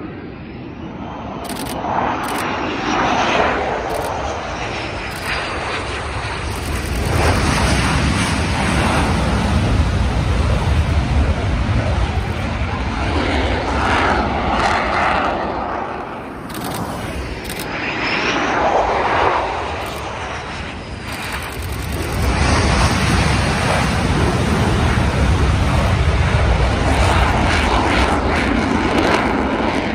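EA-18G Growler jets, each with twin GE F414 turbofans, flying touch-and-go landings. The jet noise swells and eases as the aircraft pass, and is loudest over the last several seconds as one touches down and climbs away under power.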